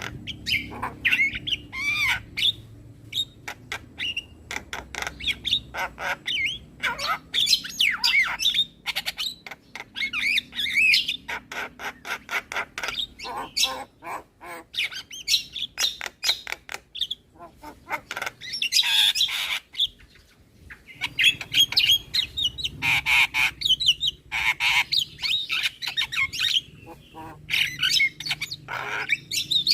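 Javan myna (jalak kebo) calling busily: a rapid stream of harsh squawks, sharp clicks and short gliding whistles, with a brief lull about twenty seconds in.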